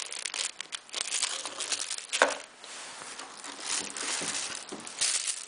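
Crinkling and rustling of a clear plastic zip-lock bag holding a cable as it is handled, in irregular crackles.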